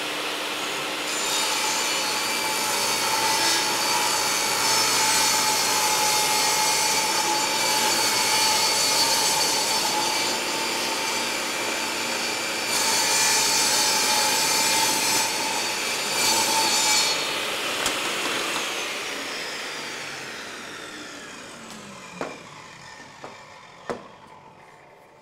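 Portable table saw running and ripping a 3/4-inch MDF board with a push stick. About eighteen seconds in, the motor is switched off and the blade winds down with a falling whine. Two light knocks come near the end.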